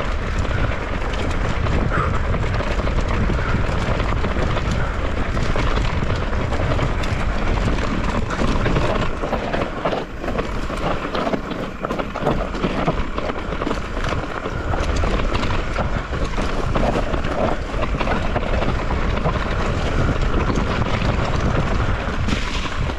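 Continuous wind buffeting on the microphone, with dense rattling and knocking throughout.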